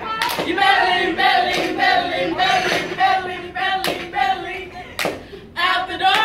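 A small group of voices singing together, with a few sharp hand claps cutting through.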